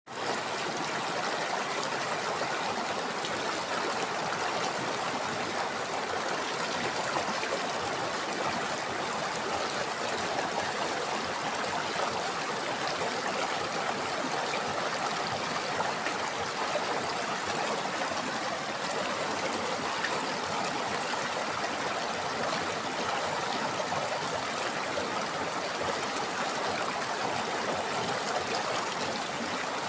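A river flowing: a steady, even rush of running water, with a thin, steady high-pitched hiss above it.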